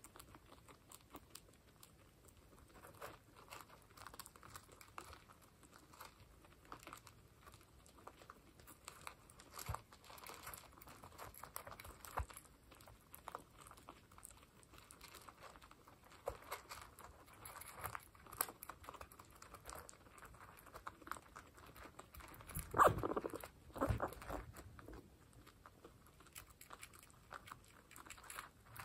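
Guinea pigs crunching dry hay pellets: a steady run of small, sharp crunches and clicks as they chew. Near the end come two louder knocks a second apart.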